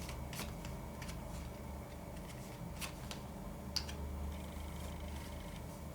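Tarot cards being handled on a table: a few faint, light clicks as a card is picked up and turned, the sharpest near four seconds in, over a steady low room hum.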